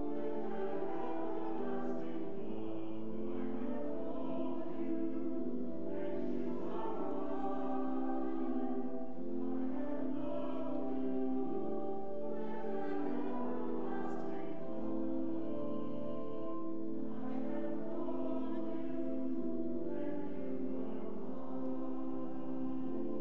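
Offertory hymn: voices singing over slow, sustained chords with a deep bass line.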